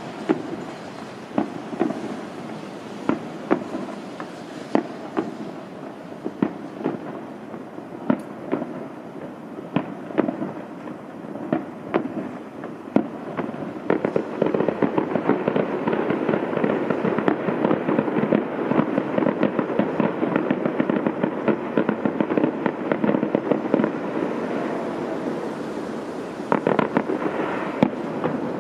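Aerial firework shells bursting in a display: separate bangs at irregular intervals, then from about halfway through the bursts come thick and fast in a continuous crackling barrage.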